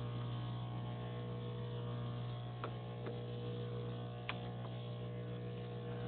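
Cyetus espresso machine running with a steady hum on its first power-up, set going by a press of its menu button. A few faint clicks come through it midway.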